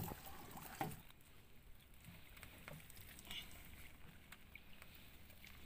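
Faint water sloshing with a few light knocks, mostly in the first second.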